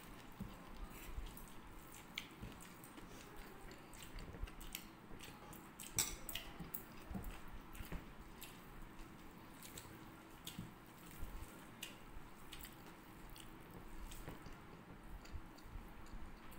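Quiet chewing and mouth sounds of people eating rice and vegetable dishes by hand, with soft squishing as fingers mix rice on the plates. Scattered small clicks and smacks run through it, the sharpest about six seconds in.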